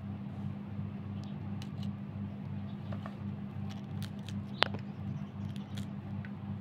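Kitchen knife cutting green bell pepper on a plate: scattered light taps and clicks of the blade, with one sharp clack about four and a half seconds in. A steady low hum runs underneath.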